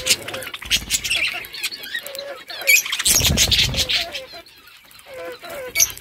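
Budgerigars chattering with short warbling chirps while feeding on fresh greens, mixed with many sharp clicks. A louder rustling burst comes about three seconds in.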